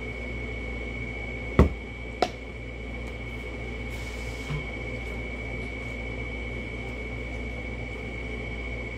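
Two sharp knocks about half a second apart, a little under two seconds in: things being set down or tapped on a wooden tabletop at a meal. They sound over a steady low hum with a faint high whine.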